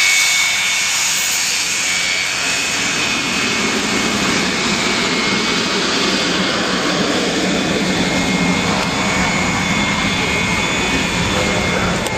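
Jet aircraft engines at an air display: a steady rush with a thin high turbine whine on top. The sound grows fuller and deeper in the second half, as the aircraft passes.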